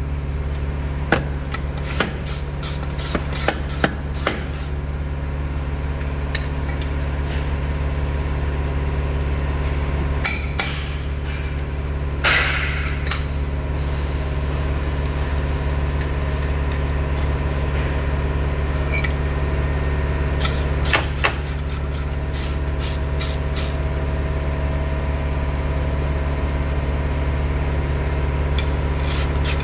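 A steady low mechanical hum with scattered sharp clicks and knocks. The clicks come in small clusters, including a quick run of several about two-thirds of the way through.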